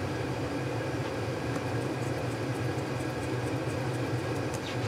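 Steady low hum of a forced-air furnace running, with a few faint light ticks from a small screwdriver working tiny screws into the knife handle.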